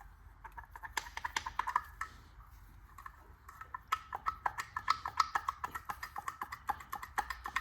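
Rapid runs of light metallic clicks from hand tools working on a car differential during teardown, a short run about a second in and a longer, busier run from about halfway.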